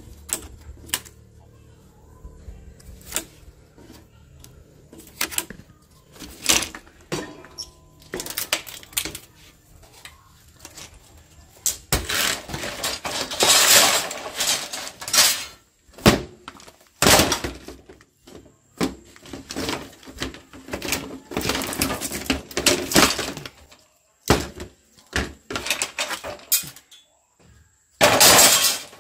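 Parts of a smart TV being pried and broken apart by hand: a run of sharp cracks and clicks, with longer stretches of crunching and scraping about twelve seconds in, again about twenty seconds in, and near the end.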